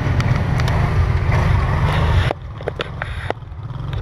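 Quad (ATV) engine running under load on a rough dirt trail, heard close from an onboard camera. About two seconds in the sound drops sharply in level, and the engine hum then carries on with scattered knocks and rattles.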